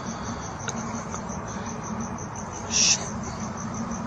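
Crickets chirping in an even, rapid pulse of about six chirps a second, with one louder, closer chirp a little under three seconds in. A low steady hum runs beneath.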